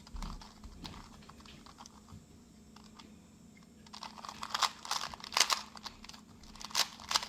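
2x2 Rubik's cube being turned through an OLL algorithm, its plastic layers clicking and clacking. A few faint turns come at first, then a quick run of sharp clicks from about four seconds in.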